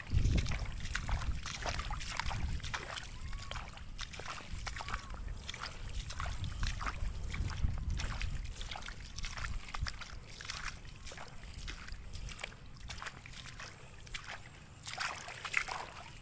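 Wind rumbling on the microphone, with many scattered clicks and ticks throughout and two faint short chirps about three and five seconds in.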